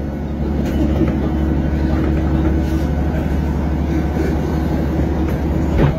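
Steady low rumble and hum of a passenger train carriage running, heard from inside the car, with one short knock near the end.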